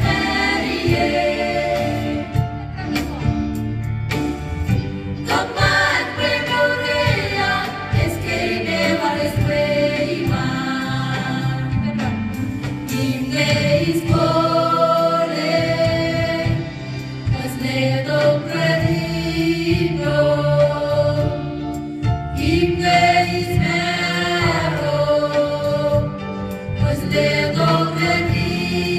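Small choir of mixed voices singing a gospel hymn in harmony, accompanied by a guitar.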